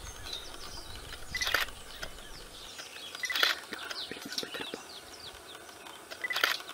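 Birds chirping: many short, high, falling chirps, with three louder, sharper calls spread across the few seconds.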